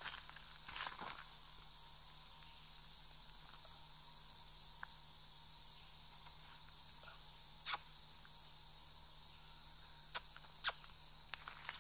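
Steady high-pitched drone of a rainforest insect chorus, with a few sharp clicks about two-thirds of the way through and twice more near the end.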